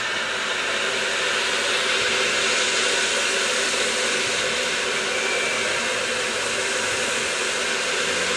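BR Standard Class 8 steam locomotive No. 71000 'Duke of Gloucester' standing with steam blowing off from the top of its boiler: a steady, loud hiss, the sign of its safety valves lifting with the boiler at full pressure.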